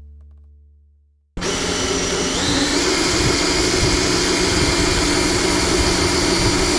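A last guitar note fading out, then about a second and a half in an electric power-tool motor on a wire stripping station cuts in suddenly and runs steadily with a high whine.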